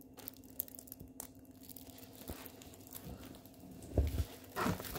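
Handling noise of a plastic-covered diamond painting canvas: faint crinkling of the film, with a soft thump about four seconds in and a brief louder rustle just after, over a steady low hum.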